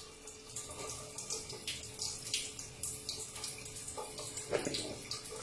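Tap water running and splashing in a kitchen sink, with irregular splashes.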